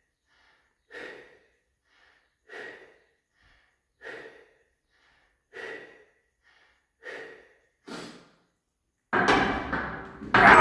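A strongman's forceful breaths while he holds a 732.5 kg barbell off its rack: short, noisy puffs about every one and a half seconds. Near the end comes a loud clatter, then a metallic clang with ringing, as the loaded bar comes down.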